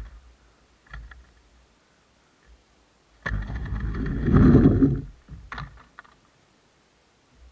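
Skateboard dropping in on a small ramp: the wheels land with a sharp slap about three seconds in, then roll and rattle down the ramp, loudest as the board passes close, and stop about two seconds later. A few light clicks come before the drop-in and just after the ride.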